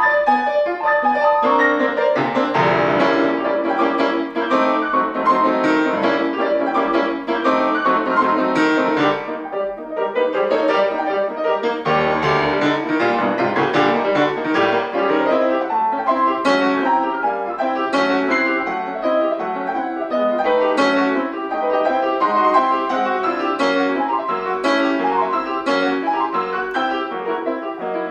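Solo classical piano played on a grand piano: a fast, dense, continuous flow of notes and chords across the keyboard, with heavy bass notes struck twice, and a brief lighter passage near the middle.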